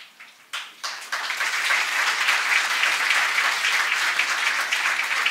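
Audience applauding: a few separate claps, then a full, steady round of applause from about a second in.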